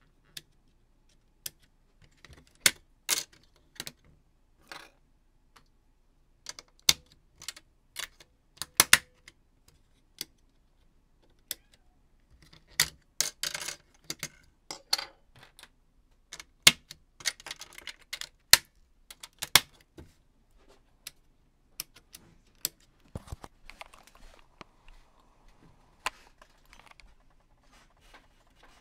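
Snap Circuits parts being handled and snapped onto the plastic base grid: irregular sharp plastic-and-metal clicks and clatter, some in quick clusters.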